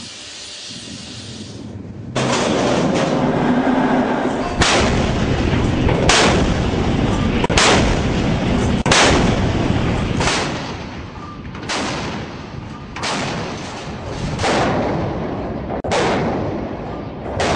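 AK-130 twin 130 mm naval gun mount of a Kirov-class battlecruiser firing a steady series of about eleven shots, one roughly every second and a half, starting about two seconds in. Each shot rings on briefly.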